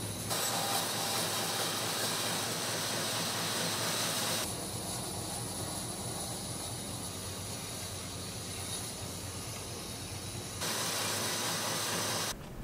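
Bandsaw mill running, its blade sawing through a large redwood root in a flattening pass: a steady hissing noise that changes abruptly twice.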